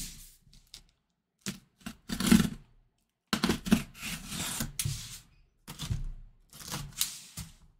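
Sealed cardboard box being opened by hand: scrapes and knocks as the box is shifted and turned on the table, and its sealing tape being slit and torn, in irregular short bursts with brief pauses.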